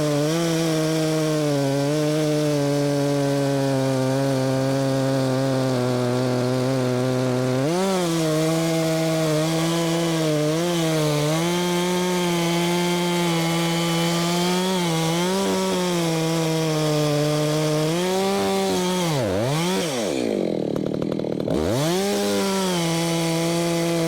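Husqvarna two-stroke chainsaw running steadily under load while cutting through ash. Its pitch steps up about a third of the way in and wavers as the cut goes on. Near the end the engine drops off sharply and revs back up.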